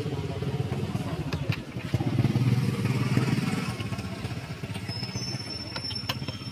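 A vehicle engine running, louder about two seconds in and then fading away.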